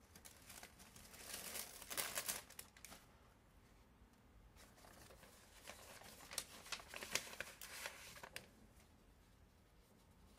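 Dry crinkling and rustling of handled material, in two spells: one from shortly after the start to about three seconds in, and a longer one from about four and a half to eight and a half seconds in.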